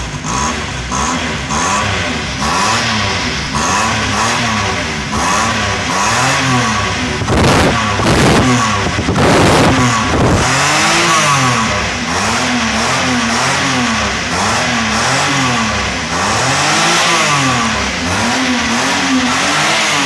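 Daihatsu Cuore engine revved over and over through its original silencer. The exhaust note rises and falls in quick blips about once a second, with harder revs around the middle.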